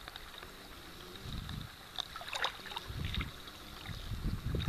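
Gusts of wind buffeting the microphone in low puffs that grow stronger toward the end, over a faint hiss of shallow sea water.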